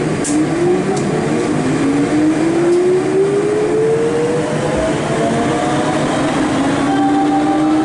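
Siemens VAL 208 rubber-tyred automatic metro train pulling away from a station, its traction drive whining and rising steadily in pitch as it accelerates, with a second rising tone joining about two seconds in, over the running noise of the car.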